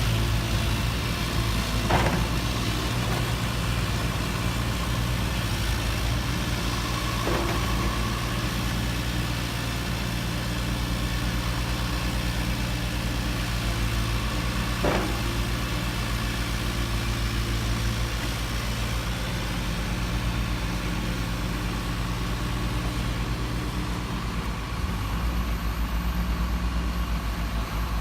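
Steady, even engine idle from an RC model truck's engine sound unit, running without change, with a few sharp clicks about 2, 7 and 15 seconds in.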